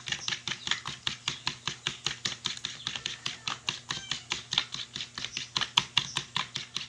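A metal fork whisking raw eggs in a plastic plate, clicking against the plate in a rapid, even rhythm of strokes.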